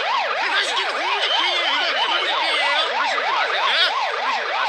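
Police car siren on its fast yelp setting, pitch sweeping rapidly up and down about four times a second, with other overlapping warbling tones under and over it.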